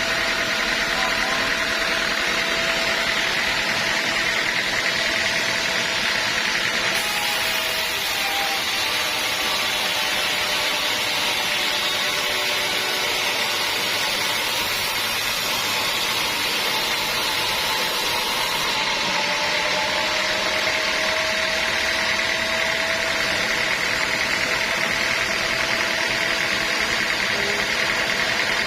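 Sawmill saw machinery running steadily while teak logs are sawn. A higher hiss comes in about seven seconds in and drops away about twelve seconds later.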